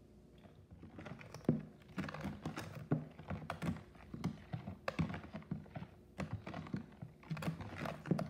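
A silicone spatula stirring sugar into blended juice in a plastic bowl: irregular quick taps and knocks against the bowl with swishing between them, starting about half a second in.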